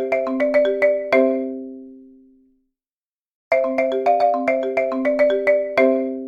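Countdown timer's alarm: a marimba-like ringtone playing a short phrase of quick notes that rings out and fades, then after a gap of about a second starts the same phrase again.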